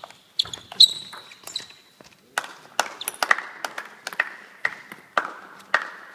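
Table tennis ball clicking: a few quick hits with a bright ring in the first second and a half, then from a little past two seconds a steady run of bounces, about two a second, slowly spacing out.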